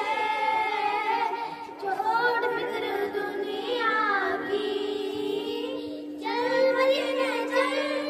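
A small group of young girls singing a chorus together into one handheld microphone, with a short break between lines about six seconds in. A steady low tone runs underneath from about three seconds in.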